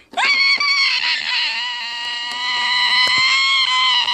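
A girl's long, loud, high-pitched scream, rising quickly at the start and then held nearly steady on one pitch.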